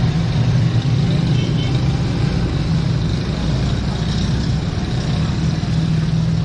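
Roadside traffic noise: a steady low engine rumble from nearby motor vehicles.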